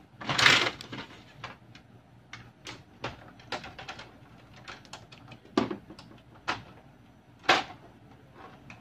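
Plastic clicks and knocks of an HP LaserJet Pro M402dn's front door and housing being pried and unclipped with pliers. A short scrape comes near the start, then irregular sharp clicks, the loudest three spread through the second half.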